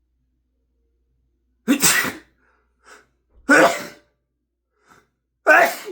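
A man sneezing three times in quick succession, about two seconds apart, with a short intake of breath before the second and third sneezes. The sneezes are deliberately induced.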